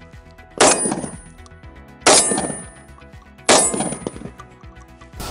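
Three shotgun shots about a second and a half apart, firing 3-inch high-velocity steel shot shells. Each shot has a brief ringing tail.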